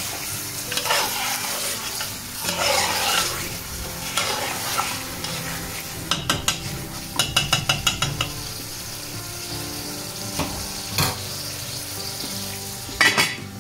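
Lamb chops and onions sizzling as they fry on high heat in an aluminium pot, stirred with a metal spoon that scrapes through the meat. About six seconds in comes a quick run of metal taps, and a few sharper knocks follow near the end.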